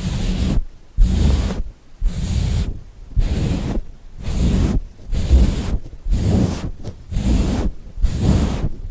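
Rhythmic swishing rubbing strokes close to a microphone, about one a second, nine in all, each lasting most of a second.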